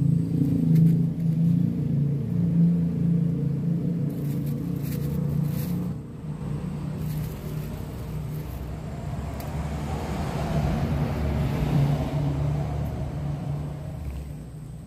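Motor vehicle engine sound: a steady low engine hum for the first several seconds, then a vehicle passing that swells and fades in the second half.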